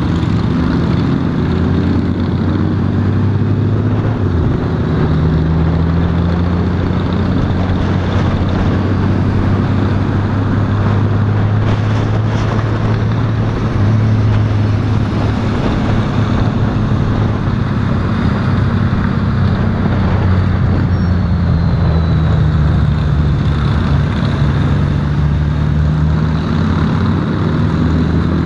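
Honda Valkyrie F6C motorcycle's flat-six engine running steadily on the move, with small rises and falls in pitch, under a constant rush of wind and road noise.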